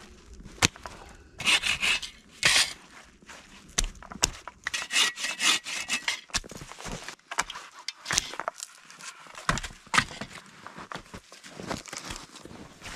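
Hand saw cutting wet, frozen firewood in irregular groups of rasping strokes, with sharp cracks and rustling as branches are handled between cuts.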